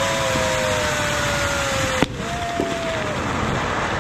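Ground fountain firework spraying sparks with a steady loud hiss, with long, slowly falling whistles over it. About halfway through there is one sharp crack, and after it the hiss sounds duller.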